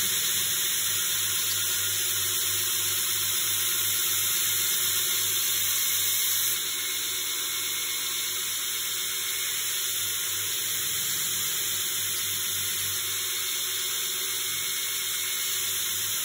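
A Kh12MF steel knife blade is being ground on a belt grinder's 60-grit abrasive belt running at reduced speed, making a steady hiss. About six and a half seconds in the blade comes off the belt, the hiss drops a little, and the belt runs on.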